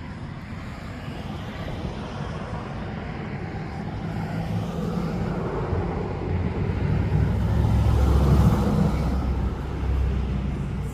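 A motor vehicle's low engine rumble growing louder as it approaches and passes close by, loudest about eight seconds in, then easing off.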